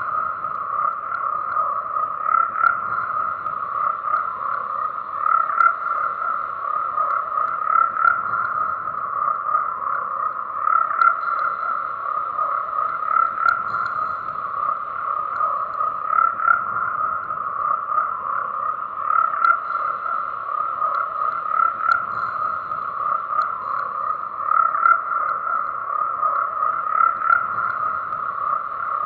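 A dense, unbroken chorus of frogs calling: a steady high-pitched drone with a lower second layer beneath it, swelling in loudness every second or two.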